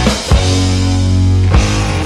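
Rock background music with drums and guitar.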